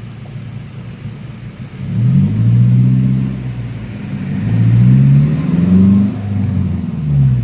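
Daihatsu Gran Max four-cylinder engine running through an aftermarket Alpino header and muffler with the stock resonator removed, heard from inside the cabin with the windows down. It runs low for about two seconds, then revs up as the van pulls away, the pitch rising, dropping back and rising again twice more through the gear changes, with a somewhat loud exhaust note.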